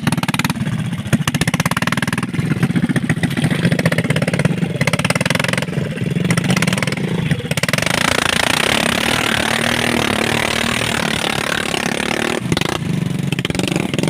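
Motorcycle engine running steadily with a rapid firing beat. A rushing hiss joins about halfway through and lasts several seconds.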